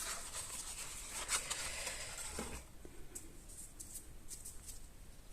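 Faint rustling and rubbing of cardstock being handled and pressed, with a few light taps. It goes quieter about halfway through.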